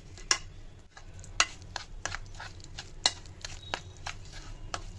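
Metal spoon stirring a thick marinade of yogurt, spice powders and green chutney in a plate, clicking and scraping against the plate in irregular taps.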